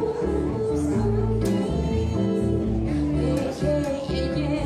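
A live band: a woman singing into a microphone, backed by a plucked upright double bass moving through changing low notes and an archtop electric guitar.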